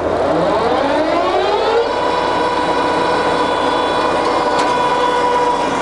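Jessey Major 1860 centre lathe's geared headstock running up to speed: a whine that rises in pitch over about two seconds, then holds steady at the 500 rpm setting, the top speed of that gear range.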